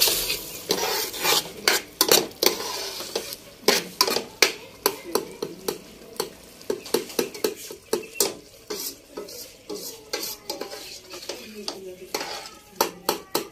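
Long metal ladle stirring thick masala gravy as it cooks in a steel pot, scraping and clinking against the pot in many quick, irregular strokes, over a light sizzle from the gravy.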